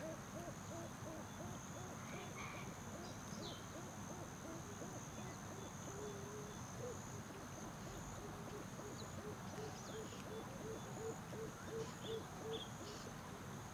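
Wildlife ambience: a steady high insect drone, a long run of short low calls repeated about three to four times a second, and scattered brief high chirps.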